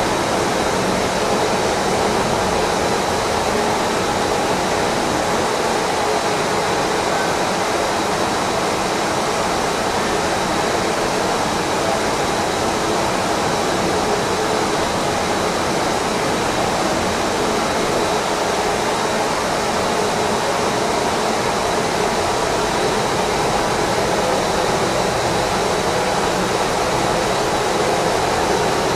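Steady, even running noise of a Ross 40-gallon double planetary mixer driven by a 5 HP single-speed electric motor, with a thin high tone held throughout.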